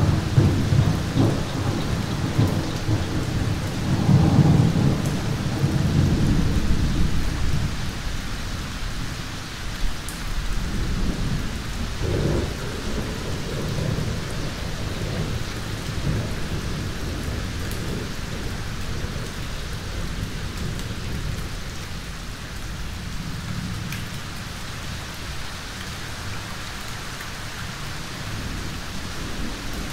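Thunderstorm: rolling thunder rumbles heavily through the first several seconds, loudest about four seconds in, then dies away, with a smaller rumble around twelve seconds. Steady rain hisses throughout, slowly growing quieter.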